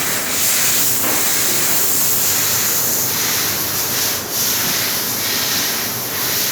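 Steady loud hiss from a CNC machine at work in a mould shop, dipping briefly about four seconds in.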